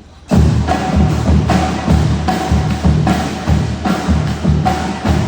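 High school marching band music that starts abruptly about a third of a second in. Heavy drum strikes keep a steady beat, two to three a second, under sustained horn notes.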